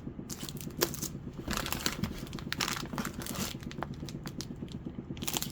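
Stencils being sorted through by hand: papery rustling and crinkling with scattered light clicks and taps at an irregular pace.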